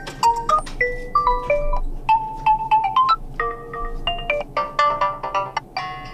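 A Realme Narzo 50i built-in alarm tone playing: a quick melody of short pitched notes that jump up and down in pitch.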